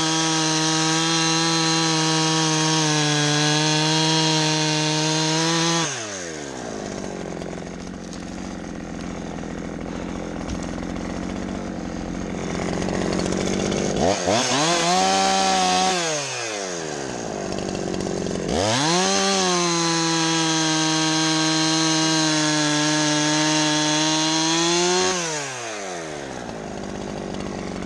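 Two-stroke chainsaw cutting wood: held at full throttle for about six seconds, dropping back to idle, blipped briefly about halfway, then run at full throttle again for about seven seconds before settling to idle.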